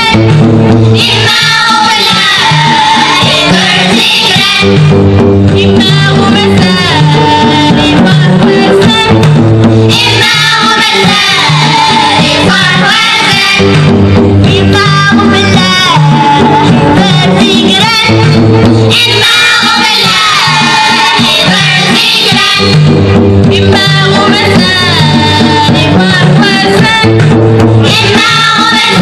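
Children's choir singing a Tamazight song together, in phrases of about four to five seconds, over hand drum and plucked string accompaniment.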